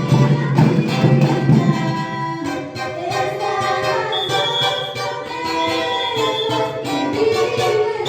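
A band playing a song. A pulsing bass line and beat drop away about two and a half seconds in, leaving held melodic notes.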